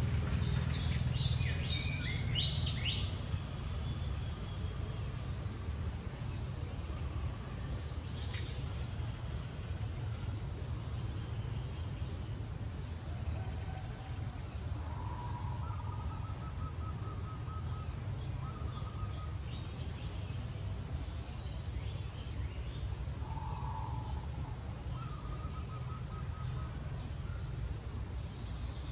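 Outdoor ambience: a steady low rumble under a fast, high-pitched pulsing insect trill. A cluster of short high chirps comes about a second in, and a few brief lower trills follow later.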